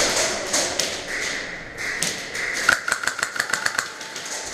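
Airsoft gun firing a rapid burst: a quick, even string of sharp clicks, several a second for over a second in the second half, after a rustling hiss.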